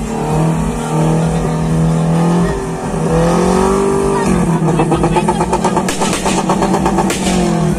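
Small pickup truck engine revving hard while drifting, its pitch rising and falling. From about halfway it turns into a rapid stuttering pulse.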